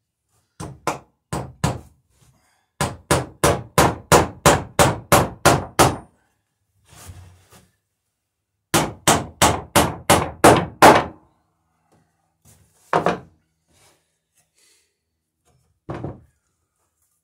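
Ball-peen hammer striking the wooden bottom boards of a dory in quick runs of sharp blows, about three a second. Two single heavier thunks follow near the end, the last as the rail-iron backing block is set on the boards.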